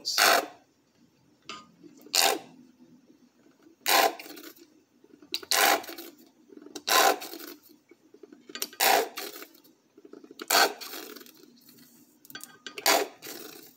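Plastic squeeze bottle of ketchup squeezed upside down into a saucepan, giving about eight short squirts of sauce and air, roughly one every one and a half to two seconds.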